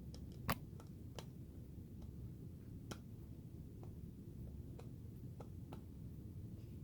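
Irregular small clicks of a Phillips screwdriver turning a screw into an empty keg detector to hold its new reed switch, the sharpest about half a second in and again about three seconds in, over faint low room noise.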